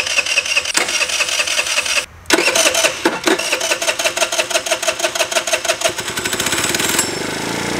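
Small scooter engine running on propane, the gas metered by hand at the valve of a torch cylinder; its firing quickens about five seconds in as it revs up.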